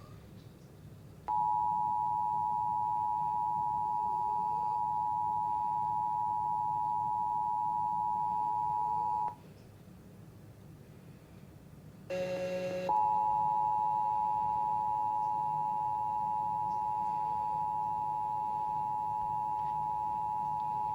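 Emergency Alert System two-tone attention signal, a steady dual tone of about 853 and 960 Hz, played through a TV speaker. It sounds for about eight seconds, stops, and after a brief jumble of tones it starts again and holds for about eight more seconds. It is the alert tone that comes before the test announcement.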